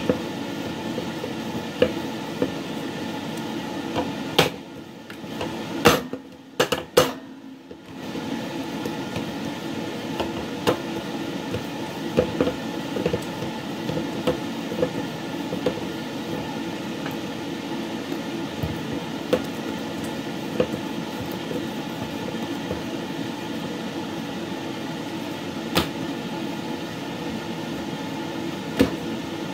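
Bread dough being kneaded by hand in a stainless steel bowl, with scattered knocks and clicks of hands and bowl, over a steady mechanical hum. The hum dips for a few seconds after about four seconds in, when a few sharper knocks stand out.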